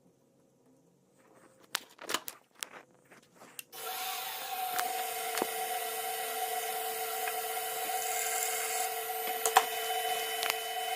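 A few knocks and clicks, then an electric machine-tool motor starts about four seconds in. It runs steadily with an even whine and hiss for about seven seconds and cuts off suddenly.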